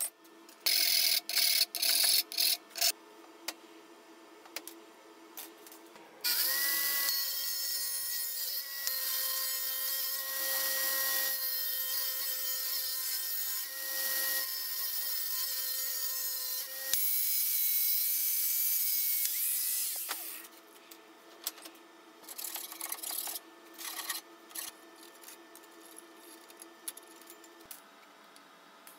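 Sharp clanks of steel strips being handled, then an electric power tool spins up about six seconds in and runs steadily for some fourteen seconds before stopping. Light clicks and ticks of metal parts being handled follow.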